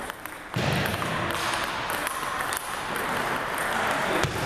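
Table tennis balls ticking sharply off tables and paddles, a few scattered clicks, one of them near the end, over the steady hubbub of a large gym hall.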